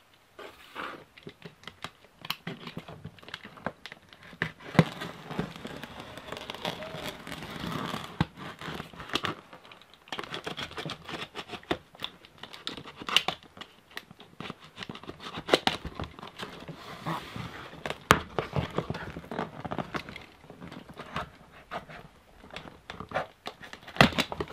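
A taped cardboard shipping box being opened by hand: the packing tape along the seam is slit and torn, and the cardboard flaps rustle and knock. Irregular sharp taps and clicks run through it.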